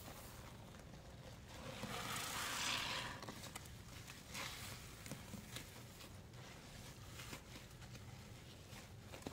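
A sponge loaded with wet cleaning-powder paste being squeezed by hand, with one crunchy squish about two seconds in, followed by faint crackling as the paste and foam settle.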